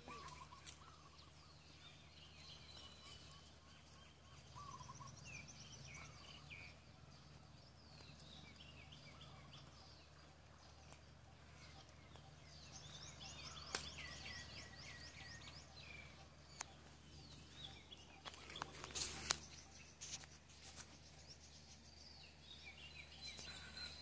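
Faint chirping and calls of several small birds, with a busy run of quick repeated chirps about halfway through, over a steady low hum. A brief knock, the loudest sound, comes about three-quarters of the way through.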